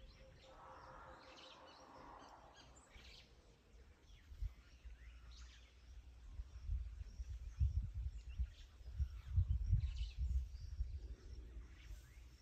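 Scattered bird chirps over open outdoor ambience. Irregular low rumbling thumps come in about halfway through and are the loudest sound.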